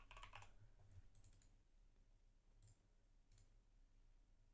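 Near silence: faint room tone with a few faint computer mouse clicks.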